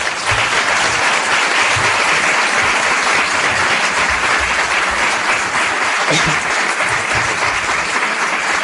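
Audience applauding steadily, a dense sustained clapping that follows the speaker's closing words.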